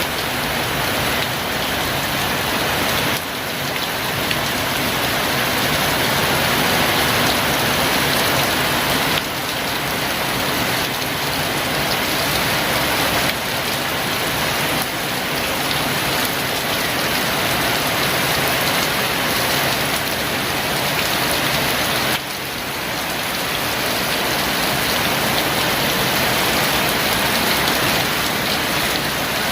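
Heavy rain pouring down steadily, a dense even hiss, with the level dropping slightly and suddenly twice.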